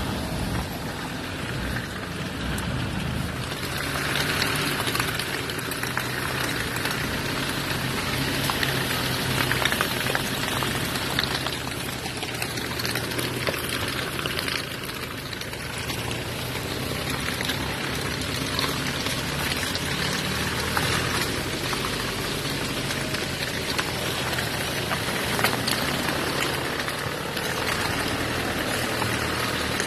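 Off-road 4x4's engine running steadily at low speed, with water and mud splashing and hissing against the body and tyres as it crawls through a wet track; the splashing is strongest a few seconds in.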